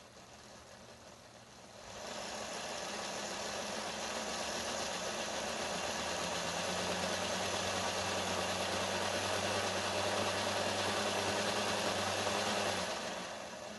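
N scale BB 15000 model locomotive's electric motor and gearing running on a rolling-road test stand at about 10 volts: a faint steady whir for the first couple of seconds, then a much louder steady whirring hum from about two seconds in, which fades away near the end.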